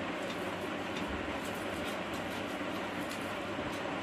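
Steady rushing background noise, with faint small clicks and smacks of hand-eating: fingers working rice and curry on plates, and chewing.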